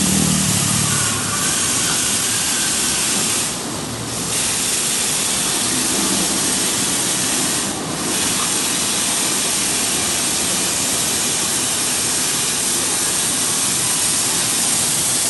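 A steady, loud hissing noise with no clear pitch, dipping briefly about four seconds in and again about eight seconds in.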